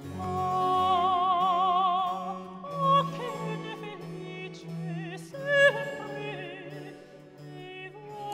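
Operatic singing with vibrato over classical accompaniment: one long held note about a second into the music, then shorter moving phrases.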